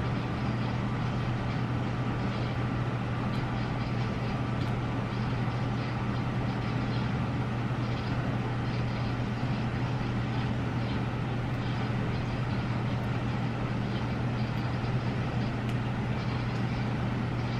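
Steady low hum under an even background hiss, unchanging throughout.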